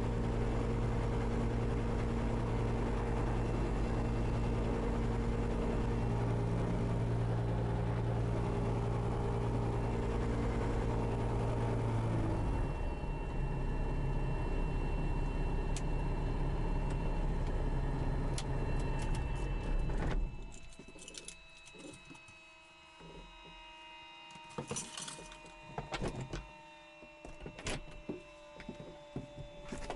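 Diamond Katana DV20's Rotax four-cylinder engine running steadily at taxi power, settling to a lower idle about twelve seconds in, then cutting off abruptly at shutdown about twenty seconds in. After it stops come scattered clicks and small knocks from the cockpit, with a few faint steady tones.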